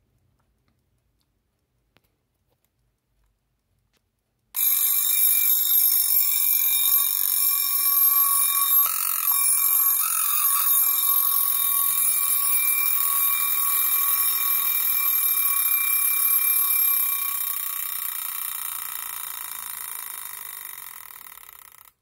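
Mechanical wind-up alarm bell of a Europa folding travel alarm clock ringing: it starts suddenly about four and a half seconds in as a loud, steady, high ring, then fades over the last few seconds as the alarm spring runs down and stops.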